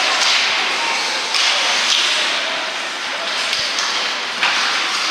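Ice hockey skates scraping the rink ice in repeated hissing bursts, with a single knock of a stick or puck about three and a half seconds in.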